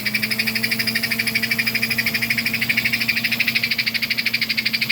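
A vintage 293 toy steam locomotive's rebuilt AC motor and gears running freely on the bench, with its smoke unit on. It makes a steady hum with a fast, even rasping pulse, about a dozen beats a second.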